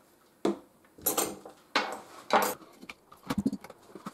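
Metal hand tools (long hex drivers) clinking and clattering as they are picked up and cleared away, about half a dozen separate short clinks and knocks.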